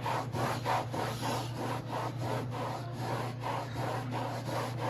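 Hand scrubbing of a textured non-skid fiberglass boat deck, working at softened glue residue. The strokes are brisk and even, about four a second, over a steady low hum.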